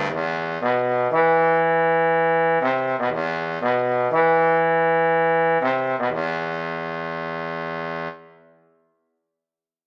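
A single trombone plays an accented melodic line of short phrases and held notes. It ends about eight seconds in on a long final note that dies away into silence.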